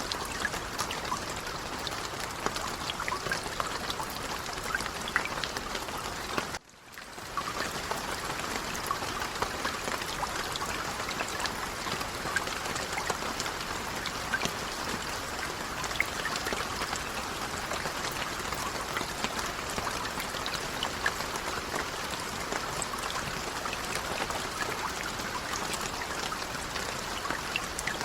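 Light rain falling: a steady patter of many small drops. About seven seconds in, the sound cuts out for a moment and then swells back.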